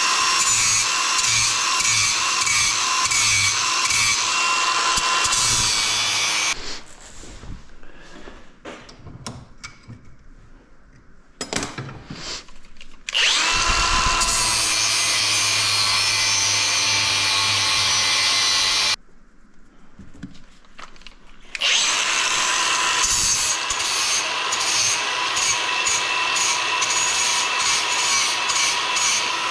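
Power grinder grinding a small aluminium patch piece to shape, running in three spells of several seconds each with a steady whine, and quieter scraping and clicks in the pauses between.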